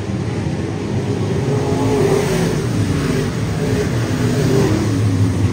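Dirt-track race cars' engines running as a pack laps the track, the sound growing louder over the second half as cars pass close by.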